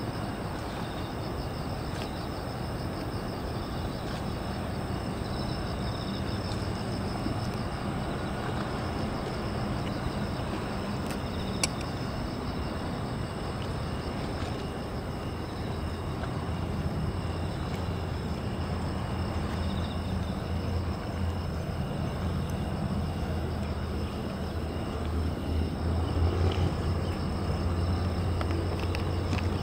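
Steady low engine rumble, swelling near the end, with insects chirping faintly and continuously high above it.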